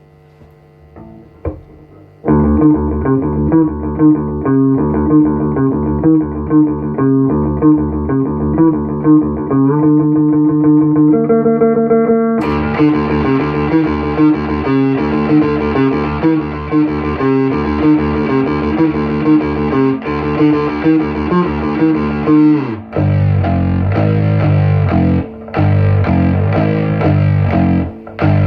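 Homemade headless fretless electric bass played through speaker cabinets and amps, picked up by a phone microphone: a low hum, then the playing starts about two seconds in with a steady rhythmic line. The tone turns brighter about halfway through and shifts to a different pattern near the end.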